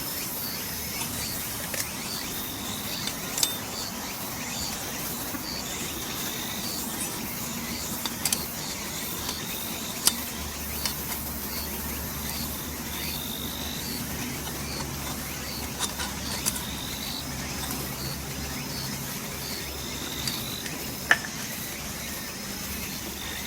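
Insects chirping in a steady rhythm, a high chirp about every two-thirds of a second, with a few sharp light clicks from the metal fire stand's parts being fitted together.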